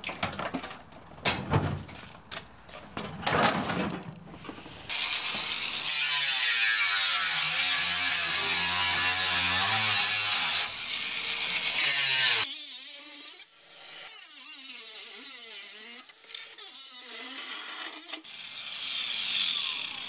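Knocks, clanks and rattles of a top-loading washing machine's sheet-metal cabinet and lid being handled and pried at, with a steady rushing noise for several seconds in the middle.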